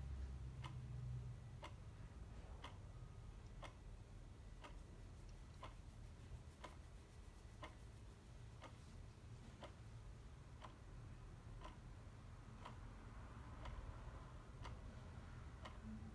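A clock ticking faintly and evenly, about one tick a second, over a low steady rumble.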